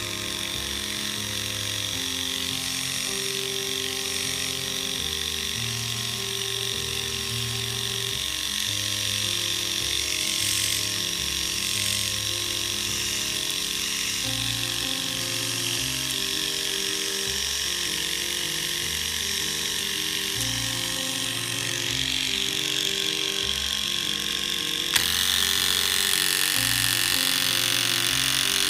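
Philips Norelco rotary electric shaver switched on and running with a steady, high buzz. About 25 seconds in there is a click and the buzz grows brighter and a little louder as the pop-up trimmer is flipped out and runs. Background music plays underneath.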